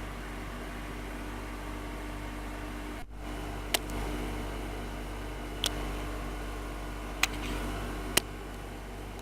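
Toyota 8001 electric sewing machine's motor running with a steady hum, with a brief break about three seconds in and then four sharp clicks at uneven intervals.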